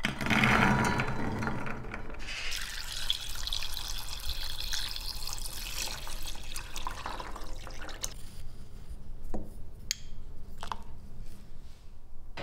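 Chickpeas poured from a plate into an enamel bowl, rattling for about two seconds, then water poured from a metal jug onto them for several seconds. A few drips and light clicks follow near the end.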